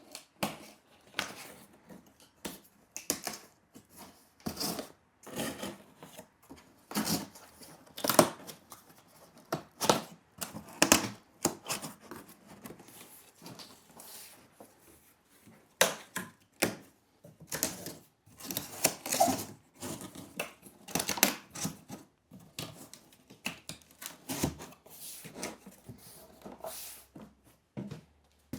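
Cardboard shelf panels being handled, folded and pushed into place: an irregular run of short scrapes, creases and taps, with a few sharper snaps.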